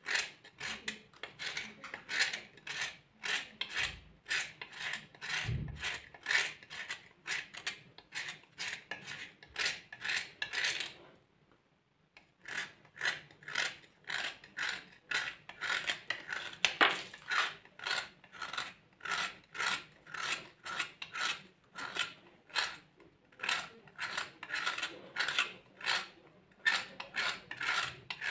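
Dry clay crumbling and crunching as it is crushed, in a rapid string of crisp crunches about two to three a second, with a brief pause near the middle.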